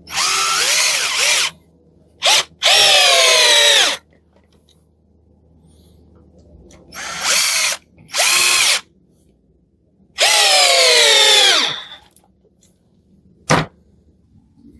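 Parkside PBSA 12 D4 12-volt cordless drill-driver motor whirring in a series of short trigger-pulled runs, about six, the longest about a second and a half; the pitch climbs as each run starts and drops as the motor winds down. A single sharp click near the end.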